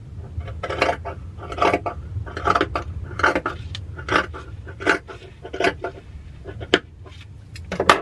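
Sewing scissors snipping through thick, fleecy fabric, about nine crunchy cuts at roughly one a second. A steady low rumble sits underneath, from wind buffeting the room.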